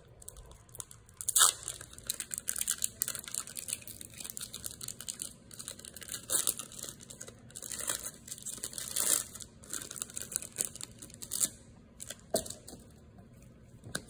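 A foil Pokémon booster pack wrapper being torn open and handled, with irregular crinkling and crackling. Sharper rips are loudest about a second and a half in and again around nine seconds.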